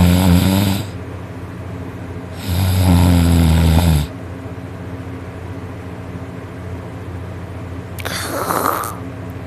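A man snoring loudly in his sleep: two long, pitched snores, one at the start and one about two and a half seconds in, then a shorter, breathier sound near the end, over a faint steady hum.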